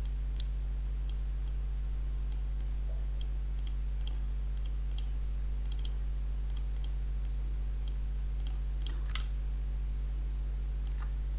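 Computer mouse clicking at irregular intervals, short sharp clicks over a steady low electrical hum.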